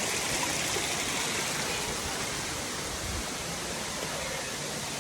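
Steady rushing of a waterfall, an even hiss of falling water with no break.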